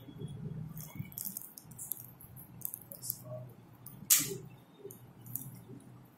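Quiet room tone with a low steady hum and faint scattered rustles, broken by one sharp click about four seconds in.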